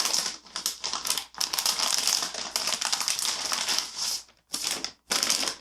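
Crinkling and rustling of a graphics card's packaging as it is unwrapped, continuous at first, then two short bursts near the end.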